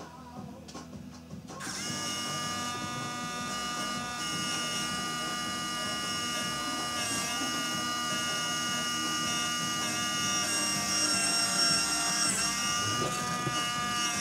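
Small electric motor whining steadily as it drives the automaton's wooden gear wheel through a small pinion, starting about a second and a half in. Its pitch dips briefly twice.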